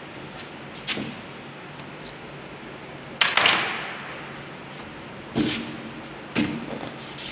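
Metal-on-metal knocks from a lathe carriage being dismantled with a hex key: one about a second in, the loudest a little past three seconds with a short rattle after it, and two more near the end.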